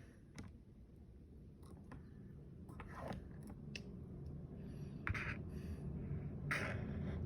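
A pen or marker scratching and tapping on paper in short, irregular strokes, with a low rumble that grows louder toward the end.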